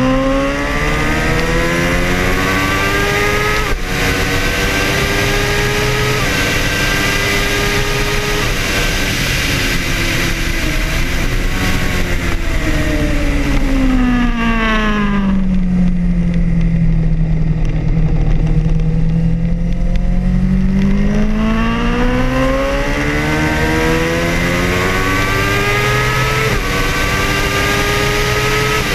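Kawasaki ZX sport bike's inline-four engine heard from on board at racing speed, with wind rush throughout. It revs up through the gears with quick upshifts, then the throttle closes and the revs fall away. After several seconds on a low note it pulls hard again through more upshifts.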